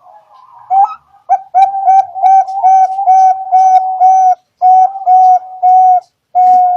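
Zebra dove (Bangkok perkutut) singing: a quick run of short, clear cooing notes at about three a second, slowing a little with gaps near the end and finishing on one longer held note.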